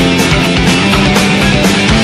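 Loud rock music with electric guitar and a steady drum beat of about four hits a second.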